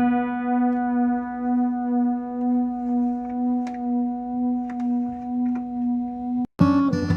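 Background music: a long held note that swells and fades slowly and steadily, breaks off about six and a half seconds in, then acoustic guitar strumming starts.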